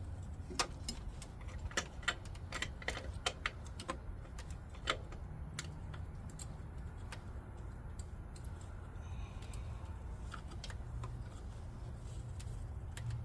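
Irregular metallic clicks and clinks of hand tools and fasteners, dense for the first few seconds and then sparser, over a low steady hum.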